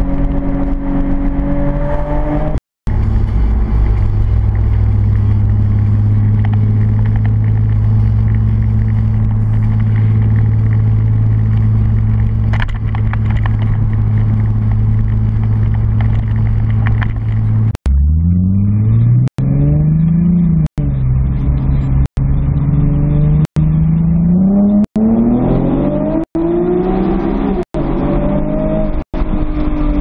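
Nissan 370Z's 3.7-litre V6 through a Fast Intentions catback exhaust with test pipes (catalytic converters removed), heard from inside the cabin. For most of the first half it holds a steady low exhaust note while cruising. In the second half comes a quick run of short clips of the engine revving up, each cut off abruptly.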